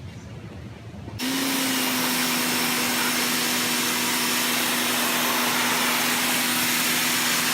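A power tool's electric motor running steadily with a loud hiss and an even hum; it cuts in abruptly about a second in.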